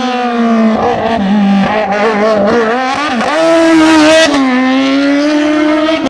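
Sports prototype racing car's engine revving hard through a cone slalom. Its pitch wavers up and down with the throttle, then climbs to its loudest about four seconds in, drops sharply with a gear change, and climbs again.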